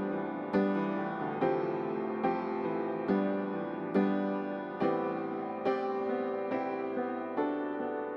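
Background music: slow, gentle piano with chords struck about once a second, each dying away before the next.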